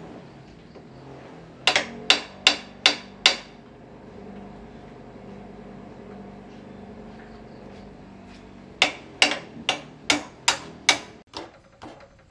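Sharp metal-on-metal blows struck at a motorbike's rear axle, in two quick runs: five strikes about two seconds in, then six more near the end, fading to a few lighter taps.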